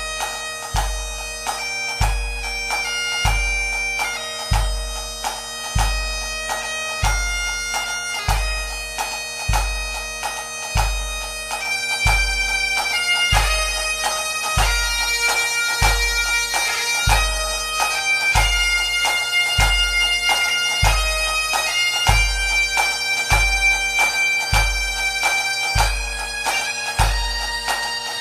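Bagpipe music: a piped melody over steady drones, with a bass drum beating about once a second.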